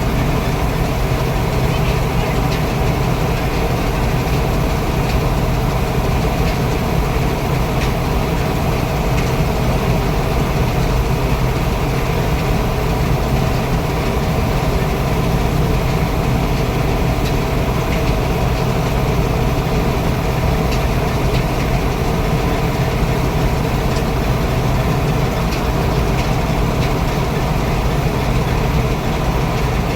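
Paddy combine harvester running steadily, its engine holding one even pitch with no revving or changes.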